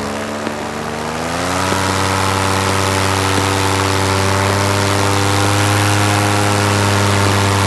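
Paramotor engine and propeller throttling up, its pitch rising for about a second before it settles into a steady run at higher power.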